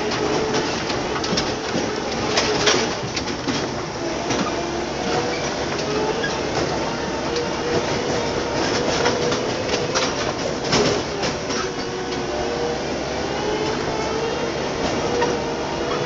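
Tractor engine running steadily while the tractor drives, with scattered knocks and rattles throughout.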